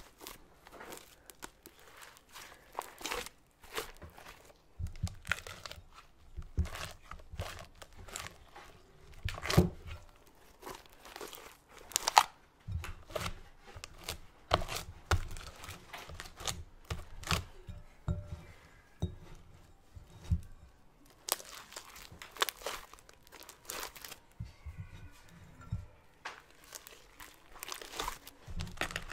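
Cloud slime (glue slime mixed with instant snow) being stretched, squeezed and kneaded by hand close to the microphone: an irregular stream of sticky crackles and tearing pops, two of them louder a little before halfway.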